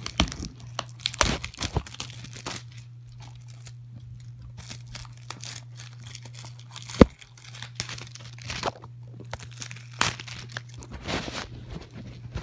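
Plastic wrapping being crinkled and torn in irregular rustles and scrapes, with one sharp click about seven seconds in. A steady low hum runs underneath.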